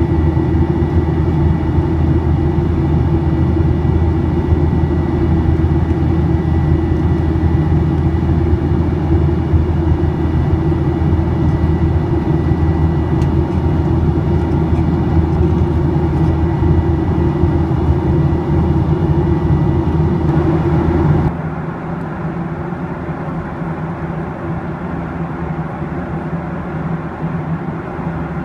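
Steady cabin noise of a Boeing 737-800's CFM56-7B jet engines and airflow during the climb, heard from inside the cabin, with a faint high whine. About three-quarters of the way through, the noise drops abruptly to a quieter, duller steady level.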